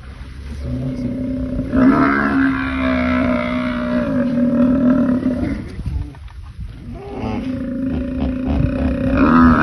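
Cape buffalo bellowing in distress while a crocodile grips it by the muzzle. It gives two long, drawn-out calls at one steady pitch, with a break of about two seconds between them.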